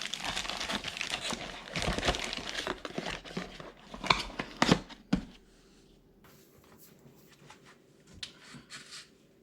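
Plastic packaging crinkling and rustling as the aftermarket pedal covers are handled, with a few sharp clicks and knocks near the middle. After about five seconds it cuts off to a faint steady hum with a little soft rustling.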